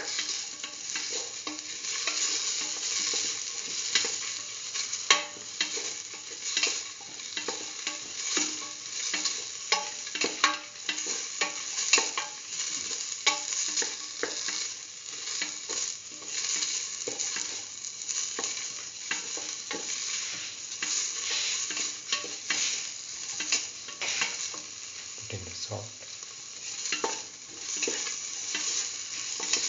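Onion, tomato and dried red chillies sizzling in hot oil in a stainless steel pot, as a spatula stirs them. The sizzle is steady, with frequent irregular scrapes and taps of the spatula on the metal.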